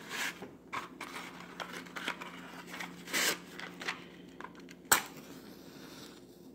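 Cardboard matchbox handled and a wooden match drawn out, then the match scraped along the box's striker about three seconds in and a sharp snap just before five seconds as it strikes, used to light a canned-fuel camping stove.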